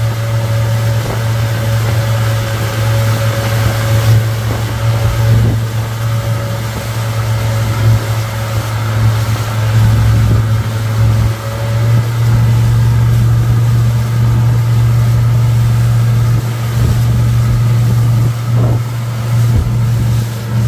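Suzuki 150 hp outboard motor running steadily at speed under load, towing, with a constant low drone and the rush of water from its wake. About halfway through it settles into a slightly louder, even note.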